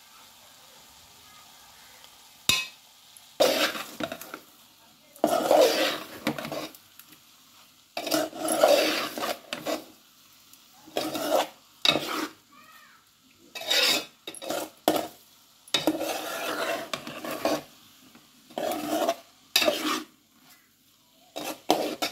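Metal spoon scraping around a metal pot while stirring spices into a pan of prawns, in repeated strokes a second or two long that start about three seconds in.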